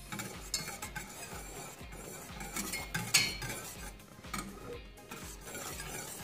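Wire whisk stirring in a stainless steel saucepan, its wires clinking and scraping irregularly against the pan, as lemon juice and sugar heat and melt into a syrup.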